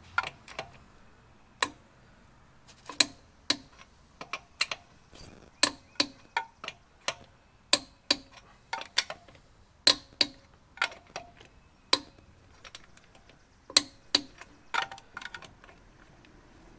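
Click-type torque wrench set to 140 foot-pounds clicking as it breaks over on truck lug nuts: sharp metallic clicks one after another, some in quick pairs. The nuts are being checked and are already at torque.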